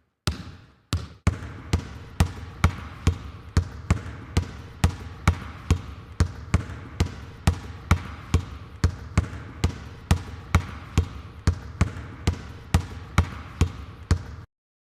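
A basketball dribbled steadily on a hard floor, bouncing about twice a second in an even rhythm, then stopping abruptly near the end.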